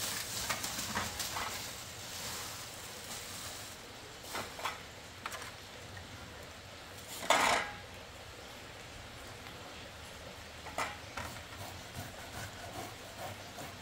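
Thin plastic bag rustling as whole fish are pulled out of it, then fish and a knife handled on a metal tray, with scattered light taps and clinks. One louder brief sound about halfway through.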